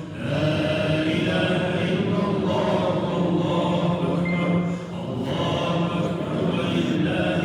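Melodic Quran recitation at an Eid prayer, chanted in long held phrases with a brief pause for breath about five seconds in.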